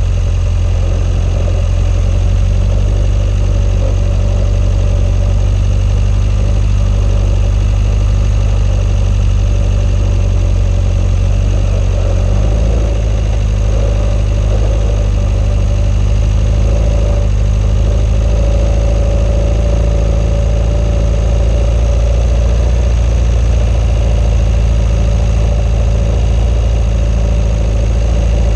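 Swamp buggy's engine running steadily under way, a loud low drone whose note shifts slightly about twelve seconds in.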